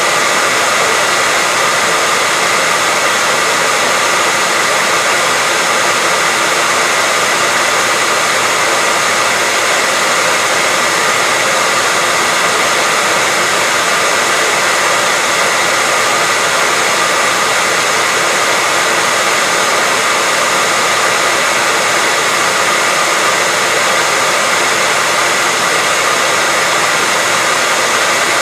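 Hairdryer running steadily: an even, unbroken rushing of air over a constant motor hum, with a faint high whine.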